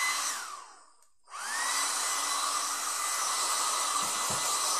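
Small handheld hair dryer blowing. It is switched off within the first second, its motor whine falling away, then switched back on about a second and a half in, the whine rising and holding steady. A couple of soft knocks near the end.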